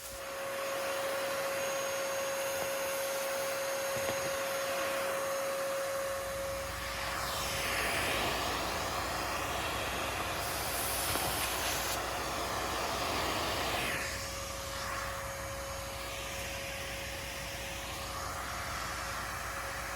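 Vacuum cleaner with a long extension nozzle switched on and running, a steady whine over a rush of air, sucking bronze orange stink bugs off a citrus tree. In the middle stretch the air rush rises and falls in pitch several times.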